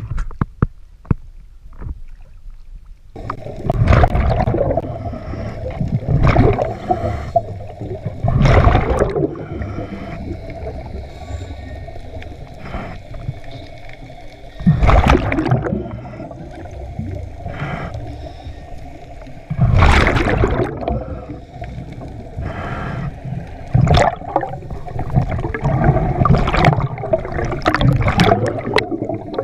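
Scuba exhaust bubbles gurgling up from a diver's regulator in loud rushing surges every few seconds, one surge per exhaled breath, heard underwater through the camera's housing over a steady muffled background.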